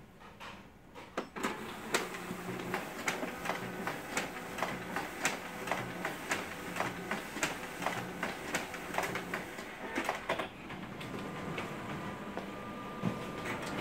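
Sharp MX-series multifunction copier running a booklet copy job. It starts up about a second and a half in with a steady hum and regular clicks about twice a second, then changes to a steadier whir with a thin tone about ten seconds in.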